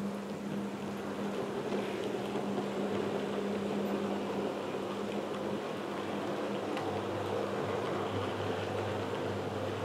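Model train running on the layout: a steady motor hum with rumble from the wheels on the track, growing a little louder in the first few seconds.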